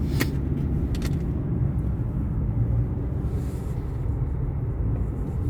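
Car cabin road noise: a steady low rumble of the moving car, with two brief clicks in the first second.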